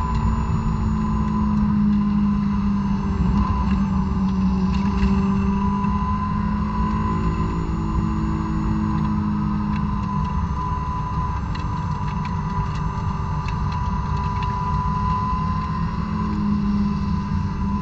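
2006 Honda S2000's four-cylinder engine, on stock exhaust and intake, held at high revs around 6,500 rpm under throttle, heard from inside the cabin. The note sags slightly in pitch as the revs ease from about 6,700 to 6,200 rpm.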